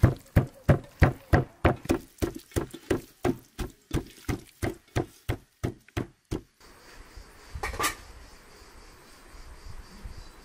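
Raw chicken wings being kneaded by hand with chopped onion and spices in an enamel bowl: wet squelching slaps, about three a second, growing weaker and stopping about six and a half seconds in. After that there is only a faint background with one brief rustle.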